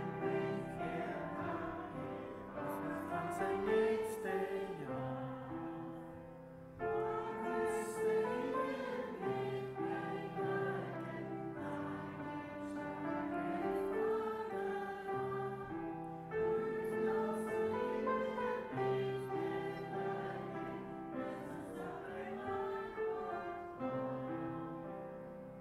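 Voices singing a slow song with grand piano accompaniment, in held notes and phrases that pause briefly about every five seconds.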